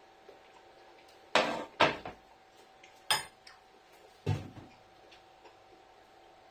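Kitchen clatter: dishes and cutlery knocked and set down, four sharp knocks within about three seconds, over a faint steady hum.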